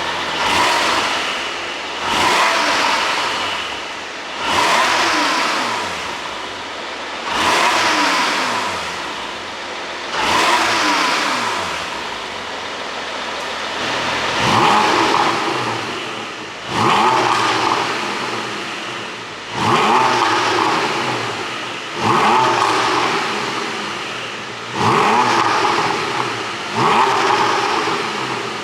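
2021 Porsche 718 Boxster GTS 4.0's naturally aspirated 4.0-litre flat-six engine, revved about eleven times in a row. Each rev climbs sharply and falls back, and the blips come quicker in the second half. As the revs drop the exhaust pops and crackles on the overrun, from a pop-and-crackle ECU tune.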